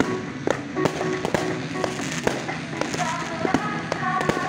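Aerial fireworks going off in a string of sharp bangs and pops at irregular intervals, with music playing underneath.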